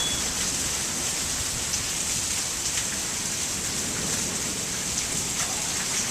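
Heavy monsoon rain pouring steadily, a dense even hiss with the odd drop ticking on nearby surfaces.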